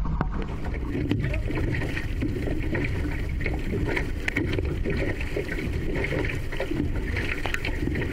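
Outrigger canoe being paddled: water splashing and rushing along the hull, with paddle strokes coming about once a second over a steady low rumble.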